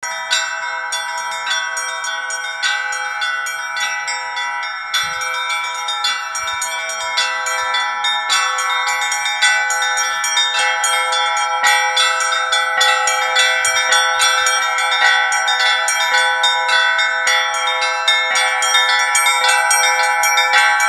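Russian Orthodox church bells rung in a fast, continuous peal, several strikes a second overlapping into long ringing tones, growing slightly louder as it goes.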